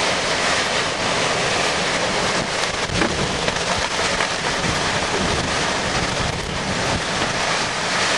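Violent severe-thunderstorm wind gusting through trees and buffeting the microphone: a loud, steady rush of noise with a few stronger gusts about three seconds in. These are the damaging winds of a rear-flank downdraft or a nearby tornadic circulation, strong enough to be knocking trees over.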